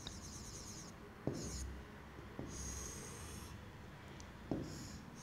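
Faint scratching of a pen drawing strokes on an interactive whiteboard screen, in several short bursts, with three light taps of the pen against the board.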